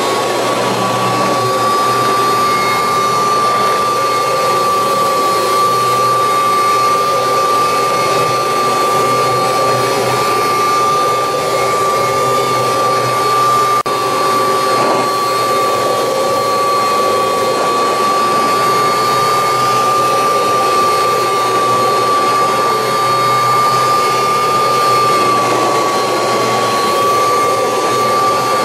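1986 Kirby Heritage 2 upright vacuum cleaner running steadily while vacuuming carpet, its motor and fan giving a constant high whine over the suction noise.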